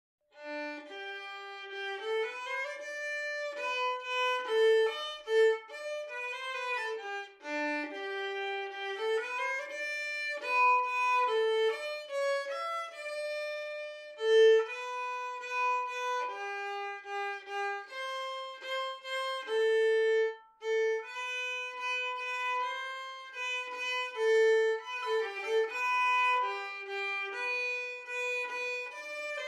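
Background music: a solo instrumental melody played one note at a time, with held notes and no accompaniment or bass.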